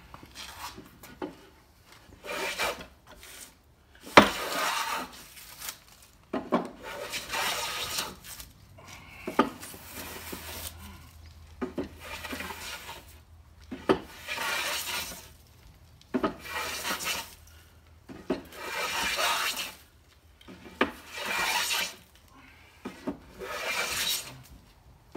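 Large Chinese wooden hand plane shaving a construction-grade 2x4 in about ten long strokes, each a hiss of the blade cutting, most starting with a short knock; the sharpest knock comes about four seconds in.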